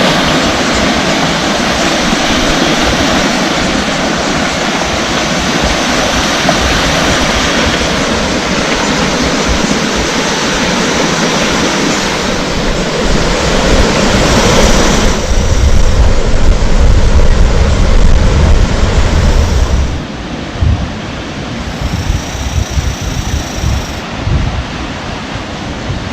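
Sea surf washing in a steady rush, with wind buffeting the microphone. The rush swells about fifteen seconds in and falls away abruptly near twenty seconds.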